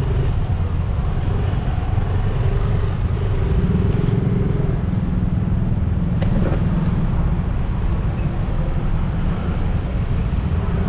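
City street traffic heard from a bicycle in the flow: motorcycle and car engines running close by, with a steady low rumble throughout and a single sharp click about six seconds in.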